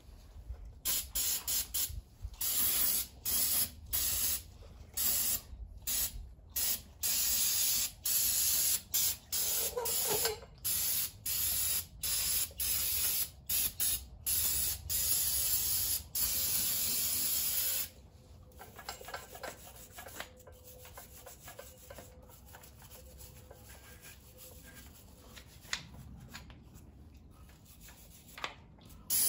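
Aerosol engine cleaner sprayed onto an engine in many short hissing bursts, one after another, for the first eighteen seconds or so. After that it turns much quieter, with faint scrubbing of a brush on the engine, and one more spray burst comes right at the end.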